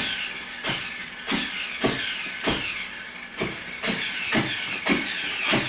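A small child eating mango: wet mouth sounds of chewing and slurping, a smack about twice a second.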